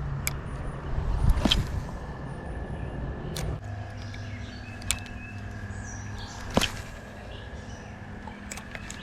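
Birds chirping faintly over a steady low hum and a constant thin high tone, with a handful of sharp clicks scattered through.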